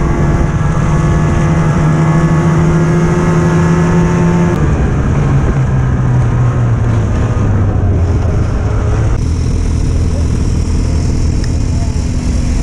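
Snowmobile engine running steadily at speed. About four and a half seconds in it eases off, its pitch falling over several seconds before settling into a lower, slower steady run as the sled slows.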